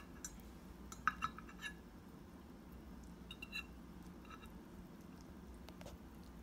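Cutlery clinking against a plate as a shrimp's tail is cut off: a quick run of light, ringing clinks about a second in, then a fainter few around three and a half seconds and again a little later.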